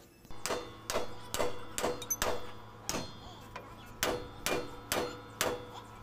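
Hammer striking metal on a truck's steering gear, about a dozen sharp blows at roughly two a second with a short ring after each, pausing briefly midway.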